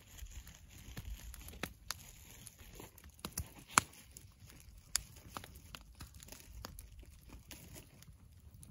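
Wood campfire crackling with scattered small pops, and one loud sharp pop a little before four seconds in.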